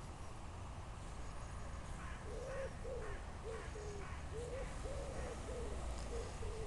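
A pigeon cooing: a run of about eight soft, low, rising-and-falling coos starting about two seconds in, over a steady low rumble of wind on the microphone.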